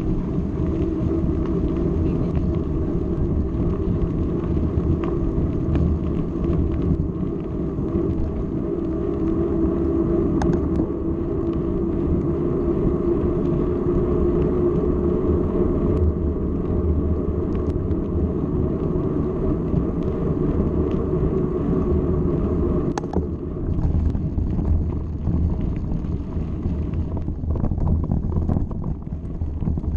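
Mountain bike rolling on a paved road: a steady hum from the knobby tyres over a rumble. After about twenty-three seconds the hum stops and the ride turns rougher, with scattered clicks and knocks from stones as the bike moves onto a rocky dirt track.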